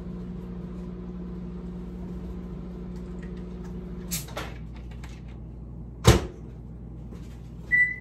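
Microwave oven running with a steady hum that stops about four seconds in, followed by a click. About two seconds later comes a sharp knock, the loudest sound, and a short high beep near the end.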